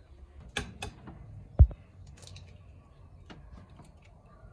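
Scattered clicks and knocks of cookware and kitchen things being handled, with one loud, dull thump about one and a half seconds in.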